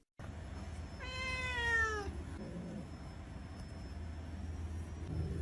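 A domestic cat meows once, about a second in: a single call lasting about a second that falls slightly in pitch, over a steady low hum.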